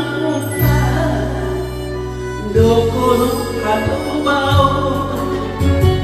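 Enka song played on a karaoke-style backing track, with a woman singing into a microphone over the accompaniment.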